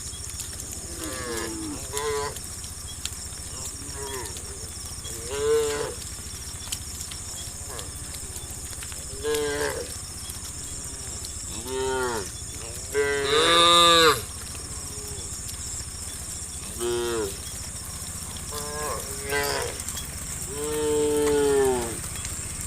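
Cows in a herd mooing, about ten separate calls that each rise and fall in pitch. The loudest and longest call comes a little past the middle, and another long one comes near the end. A steady high hiss runs underneath.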